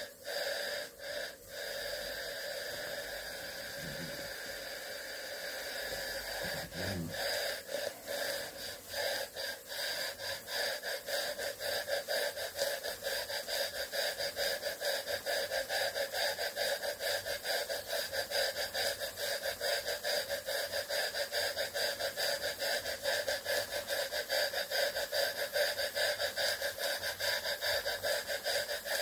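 Jensen 20G model steam engine running on steam, its exhaust chuffing in a rapid, even beat over a steady steam hiss. The beat quickens about seven seconds in and then holds steady.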